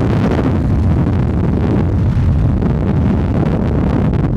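Loud, steady rumble of a car driving at speed, heard from inside the cabin, with wind buffeting the microphone.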